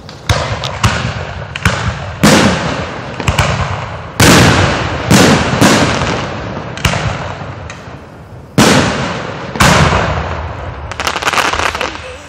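Aerial fireworks shells bursting overhead in quick succession: about a dozen loud booms, each trailing off slowly. Near the end comes a quick run of sharp crackles.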